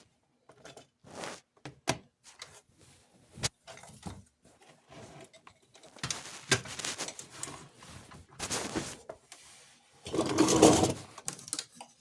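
Handling noise of small metal train-car parts on a workbench: scattered light clicks, taps and short scrapes, with a louder scraping rustle about ten seconds in.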